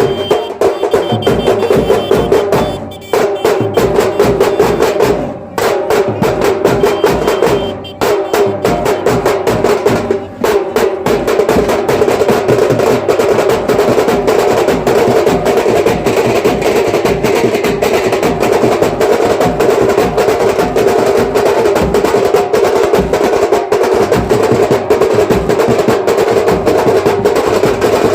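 Indian band music played live, driven by fast, dense timki drumming over a steady held melody note. The playing breaks off briefly four times in the first ten seconds, then carries on without a break.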